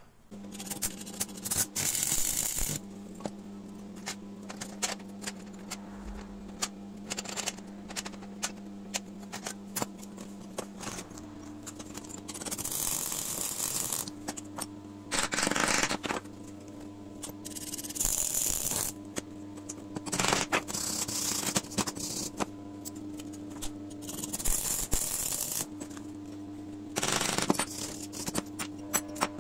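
Arc welding on steel parts: repeated bursts of crackling sizzle, each from half a second to a couple of seconds long, several seconds apart. Between them a steady low hum and small clicks.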